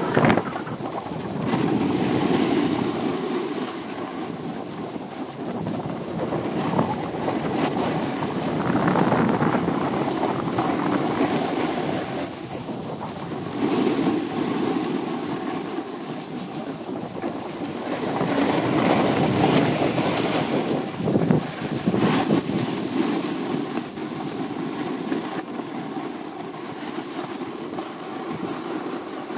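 Snowboard sliding and scraping over packed snow during a run, mixed with wind on the phone's microphone; the rushing noise swells and eases every few seconds.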